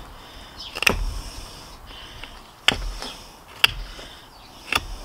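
ESEE Xancudo S35VN stainless fixed-blade knife shaving wood off the end of a stick: four short, sharp cuts about a second apart as the end is carved round.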